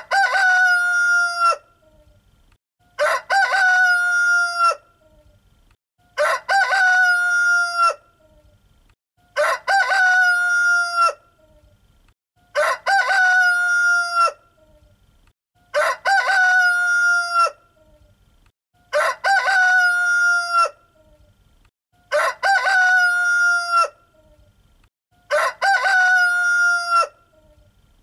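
A rooster crowing cock-a-doodle-doo nine times at an even pace, about every three seconds. Each crow lasts nearly two seconds, with a broken, stuttering start and a long held final note, and the crows sound alike from one to the next.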